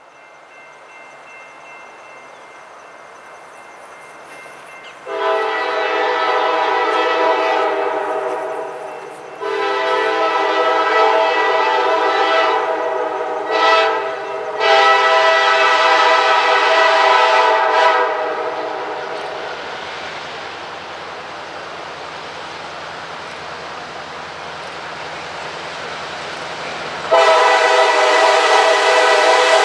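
EMD GP9RM diesel locomotive's multi-note air horn sounding the grade-crossing signal as the train approaches: two long blasts, a short one and a long one. Another long blast starts near the end. Between and under the blasts the locomotive's diesel engine and the train on the rails run steadily, growing louder.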